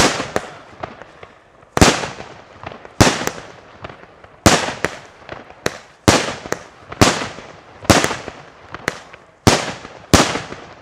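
Consumer fireworks batteries firing salute shots: about a dozen sharp bangs, roughly one a second, each trailing off in an echo.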